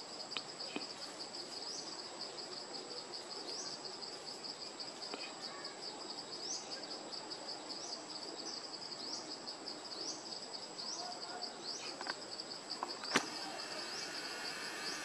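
Chorus of insects in the tree canopy: a steady, high, rapidly pulsing trill with a rising chirp every second or two over a constant thin whine. A few light clicks sound through it, the sharpest near the end.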